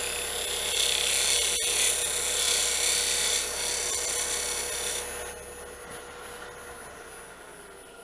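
A lathe gouge cutting into spinning cedar, a steady hissing scrape of shavings over the hum of the running wood lathe. The cut stops abruptly about five seconds in, leaving the lathe's hum, which fades away.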